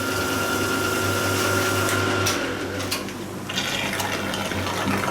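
Milling machine running as a carbide end mill plunge-cuts into a metal workpiece under flowing coolant. A steady high whine from the cut stops a little over two seconds in, while the machine hum and the wash of coolant carry on.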